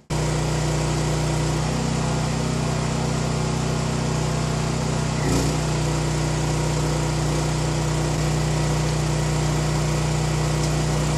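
Champion 7000-watt dual-fuel portable generator's engine running steadily on gasoline with a constant hum, under load from a well pump. A brief knock about five seconds in.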